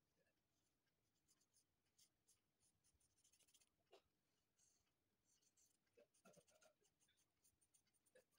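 Very faint, irregular scratching of a paintbrush working paint across paper, close to silence.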